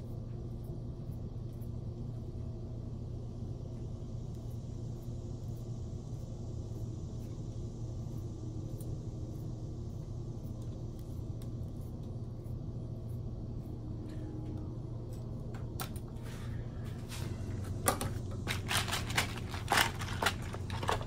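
A steady low hum runs throughout. In the last five seconds or so come a run of sharp plastic clicks and rattles as a plastic organizer case of crimp butt connectors is handled and opened.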